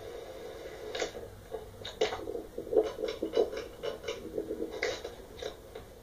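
Hampton Bay Landmark Plus 52-inch ceiling fan running with a steady hum. From about a second in, an irregular run of sharp clicks and rustles lasts about four seconds.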